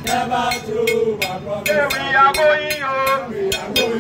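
Voices singing or chanting in held notes over a quick, steady percussive beat.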